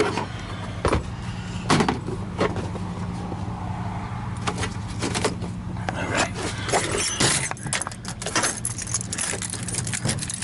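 Metal tools and small hardware clinking and rattling in many quick, irregular knocks while being handled, over a steady low machine hum.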